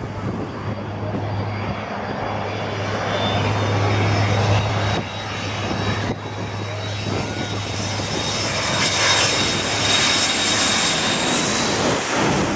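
A twin-engine jet airliner with tail-mounted engines approaches low on landing and passes overhead. Its jet noise and high engine whine grow louder as it comes over, peaking near the end.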